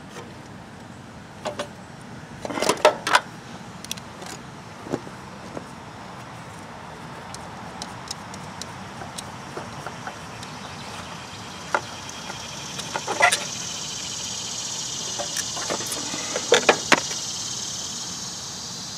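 Filter pliers clicking and knocking against a spin-on oil filter as it is worked loose by hand, with scattered metal clicks; the loudest clusters come about three seconds in and again near the end. A steady hiss swells during the second half.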